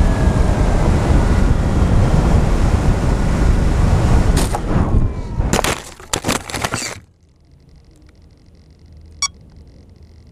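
FPV quadcopter's motors and propellers running loud, their whine falling in pitch, then a run of hits and scrapes about four and a half to seven seconds in as the drone crashes into rocky ground. After the crash the motors are stopped and it goes much quieter, with a single sharp click near the end.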